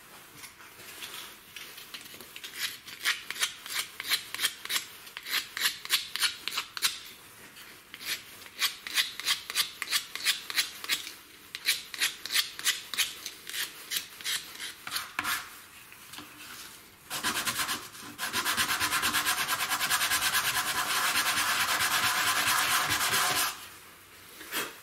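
Hand-sanding the edges of a small plywood knob with sandpaper: rhythmic scraping strokes, about three a second, in short bouts. Later, a louder, steadier rubbing runs for about six seconds and stops suddenly.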